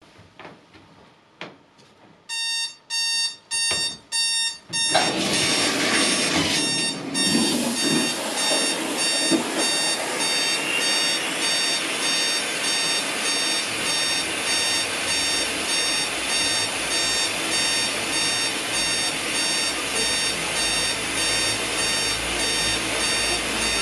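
Digital alarm clock beeping in repeated bursts of a high electronic tone, about two a second, starting about two seconds in. About five seconds in, a steady hiss of shower water starts and runs on, with the beeping still going under it.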